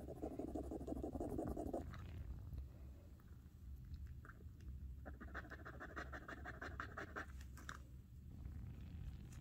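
Metal earring scratched back and forth on a black touchstone, a faint dry rasping in two spells: one in the first two seconds, another of quick even strokes from about five to seven seconds in. The scratching leaves a streak of the metal on the stone for testing what it is made of.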